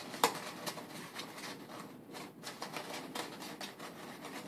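Interlocking paper pieces of a small IQ lamp crackling and rustling as hands work them apart to open one end, with a sharp snap near the start.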